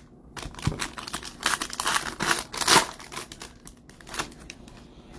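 Crinkling and tearing of a baseball card pack's wrapper as a pack is opened by hand, in irregular bursts that are busiest in the middle.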